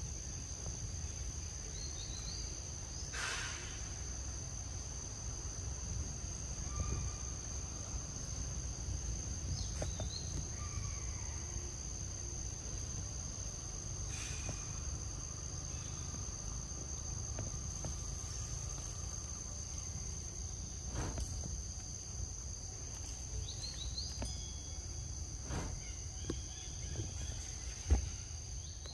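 Steady high-pitched drone of insects, two close pitches held without a break, over a low rumble. A few faint chirps and soft knocks come and go, and there is a short thump near the end.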